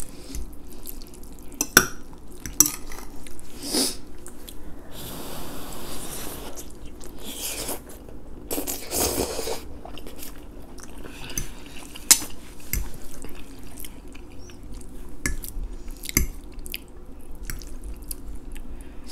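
Metal forks clinking and scraping on plates as spaghetti is twirled, with chewing close to the microphone. Sharp clicks come scattered throughout, the loudest about two seconds and twelve seconds in.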